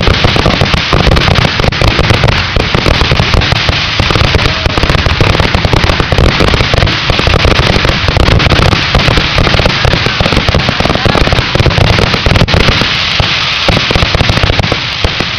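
Fireworks grand finale: a rapid, continuous barrage of shell bursts and crackling, one report after another with no gaps, easing off just at the end.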